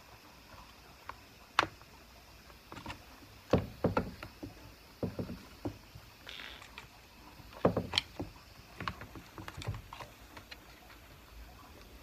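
Hands working in the carburetor compartment of a Stihl MS390 chainsaw during a fuel pickup line swap: irregular clicks, taps and knocks of plastic and metal parts, coming in short clusters, with a brief rustling scrape partway through.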